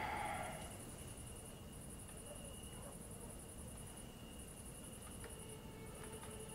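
Crickets chirping in high-pitched trills, each about a second long with short pauses between, over a faint steady background.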